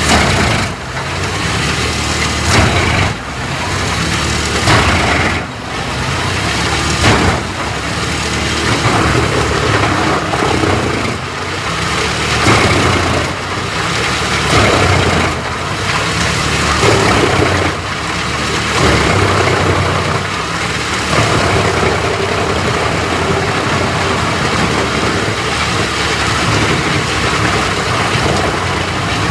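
Large wood chipper running with loud, rough grinding over a steady engine, the noise surging and easing every couple of seconds in the first half and running more evenly later.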